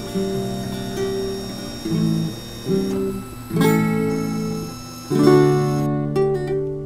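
Strummed acoustic guitar music, its chords changing every second or so.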